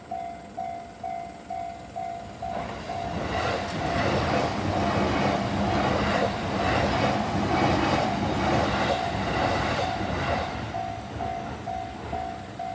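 Japanese railroad crossing bell ringing steadily about twice a second while a train passes through the crossing. The train's rumble and wheel clatter on the rails swell in about two and a half seconds in, then fade about ten seconds in, leaving the bell ringing alone.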